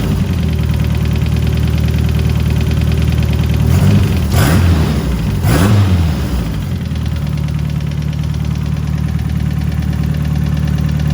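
Turbocharged Ford 2.3 four-cylinder engine idling, blipped twice about four and five and a half seconds in, then settling back to idle. It still has a light lifter tick even with new Melling lifters.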